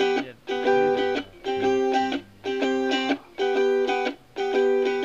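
A song's intro: a guitar strumming the same chord in short held blocks, about one a second, each cut off sharply before the next.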